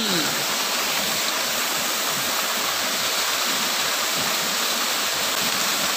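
Steady rush of water falling from a fish pond's outflow into the pool below, a small cascade running at an even level.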